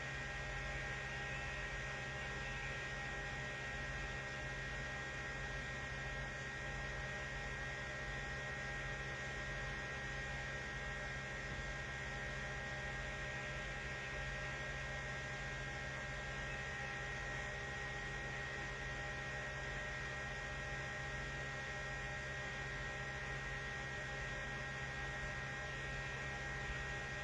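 Steady electrical hum, made of several fixed tones over a faint hiss, unchanging throughout with no other sounds.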